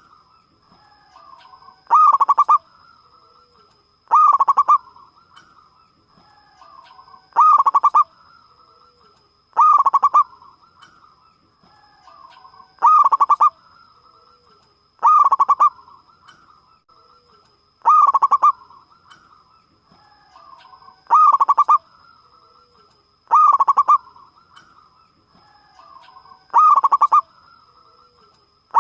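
Zebra dove (perkutut) cooing its loud, deep-voiced call, repeated about every two and a half to three seconds, ten times, with softer calls in between. A faint steady high tone runs underneath.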